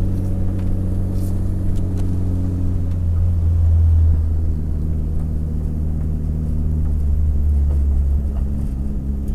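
Rally car engine and drivetrain heard from inside the cabin, running at steady revs as the car drives along; a loud, even drone that shifts slightly and swells a little about three to four seconds in.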